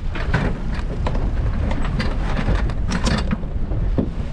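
Heavy wind rumble buffeting the microphone on a small open boat in choppy water, with a scatter of splashes and sharp knocks from gear being hauled in over the side.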